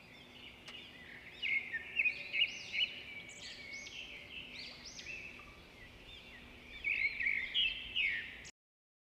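Songbirds singing, several overlapping songs of arched chirps and quick trills, loudest about two seconds in and again near the end, then cutting off abruptly.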